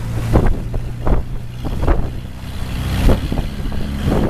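Longtail boat's engine running steadily under rushing wind and water, with several sharp knocks as the hull meets the waves.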